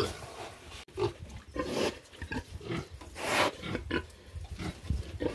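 Pigs grunting in short, irregular bursts, with one louder, noisier call a little past three seconds in.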